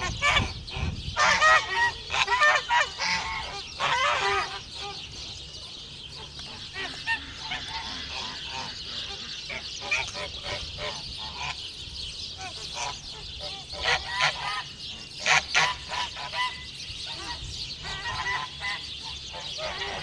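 Flock of domestic geese honking, the calls coming in clusters, loudest in the first few seconds and again about two-thirds of the way through, with scattered quieter honks between.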